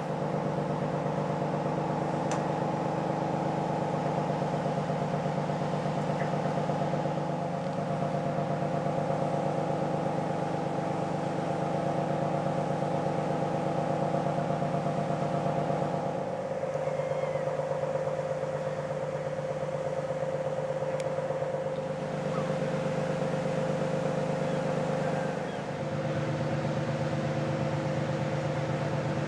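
Steady mechanical hum of the ferry MV Armorique's machinery: a low drone with several held tones that change level a few times.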